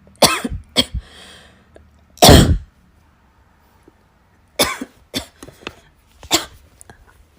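A person coughing in an uncontrollable fit: three harsh coughs in the first couple of seconds, the third the longest and loudest, then after a short pause three more. The coughing has built up after being held back and won't stop.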